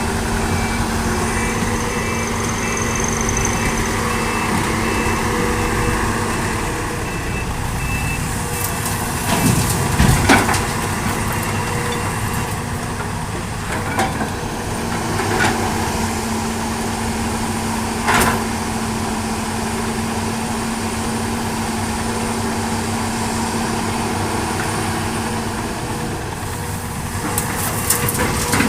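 Excavator's diesel engine running steadily, with a faint repeating beep for the first several seconds and a few sharp knocks and clanks spread through.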